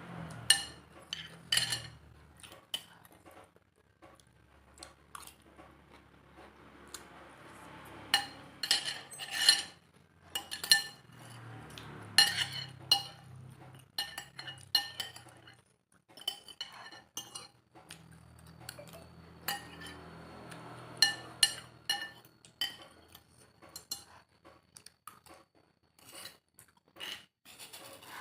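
Cutlery clinking and scraping against a bowl while eating noodle soup, in many irregular short ringing taps, with softer eating sounds between them.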